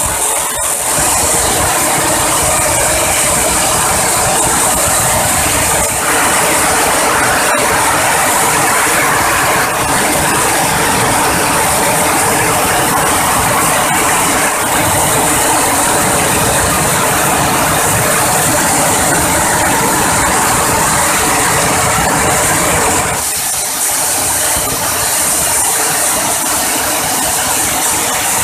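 Dry coffee-bean huller driven by a small petrol engine, running steadily with a dense mechanical clatter and whir as dried coffee cherries pass through and are hulled. The clatter thins somewhat a few seconds before the end.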